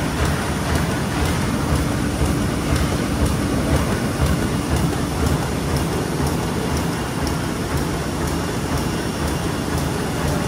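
Meccanotecnica Aster 180 automatic book-sewing machine running: a steady mechanical clatter with fast, regular light clicks.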